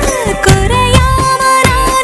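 Tamil film song: a held melody line with sliding ornaments over a steady percussion beat.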